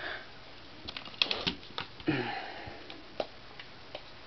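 Small objects being handled and rummaged through: a scattered run of light clicks and knocks, with a brief vocal sound about two seconds in.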